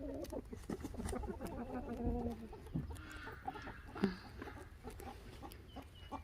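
Chickens clucking softly: a run of short, low clucks with one longer drawn-out note about two seconds in and a sharper call about four seconds in.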